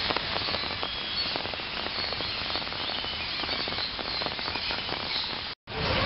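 Aviary ambience: faint bird chirps over a steady hiss, with many light ticks throughout. The sound cuts out briefly near the end.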